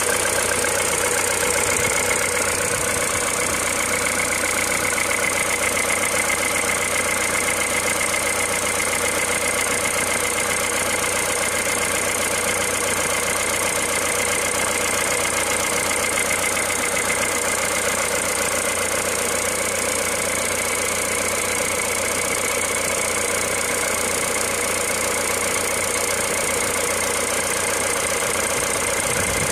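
A machine running steadily, with a constant hum and a few steady higher tones that do not change.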